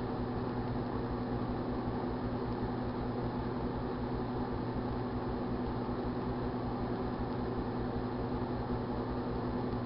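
1978 GE Dual Wave microwave oven running: a steady low electrical hum over an even fan-like whir. The cereal heating inside makes no audible crackle.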